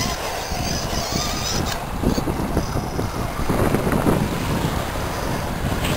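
Wind rumbling on the microphone and surf washing over the shore rocks, while an RC scale crawler's electric motor and gears whine in short spells as it climbs over the rocks.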